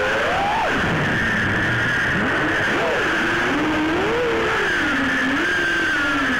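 Brushless motors and tri-blade props of a 6-inch FPV quadcopter (ETHIX KONASTY 2407 2200KV motors) whining in flight, the pitch rising and falling with the throttle, over steady hiss.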